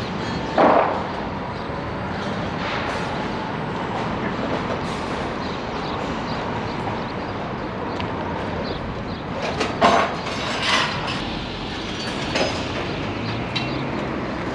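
Construction site ambience: a steady background rumble and hiss, broken by a few short knocks or clanks, one just under a second in and a cluster around ten seconds in.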